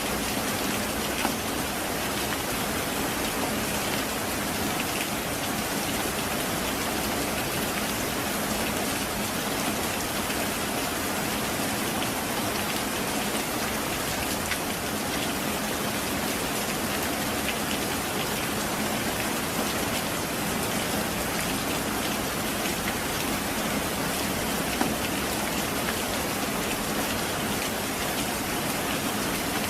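Heavy rain falling steadily: a dense, even hiss of drops on surfaces, with a couple of slightly louder single drops.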